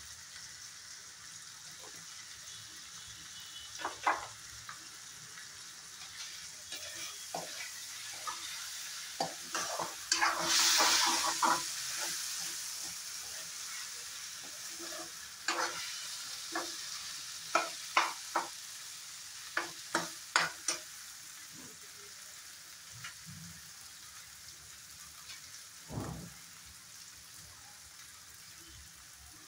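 Bottle gourd and potato pieces sizzling in oil in a kadai, stirred with a steel spatula that scrapes and taps against the pan many times. The sizzle and stirring are loudest for a couple of seconds about ten seconds in.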